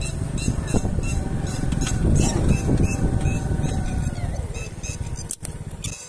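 Wind rumbling on the microphone while moving outdoors, with brief rustling strokes, dropping away about five seconds in.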